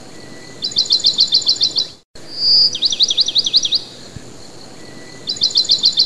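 A songbird singing: three phrases of a fast trill of high sweeping notes, about eight a second and a second or so long each, with pauses of steady background hiss between them. The sound briefly cuts out at about two seconds.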